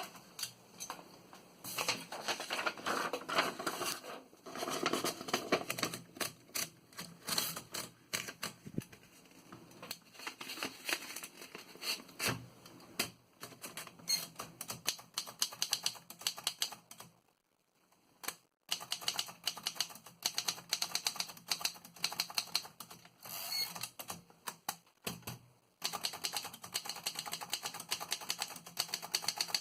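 Keys of a 1924 Underwood 3-bank portable typewriter striking in quick runs of sharp clicks as someone types, with brief pauses; the typing stops for about a second roughly two-thirds of the way through, and again briefly near the end.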